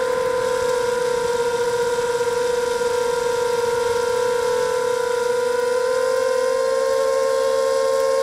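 Motors and propellers of a 260-size FPV quadcopter whining at a steady high pitch, heard through its onboard camera's microphone.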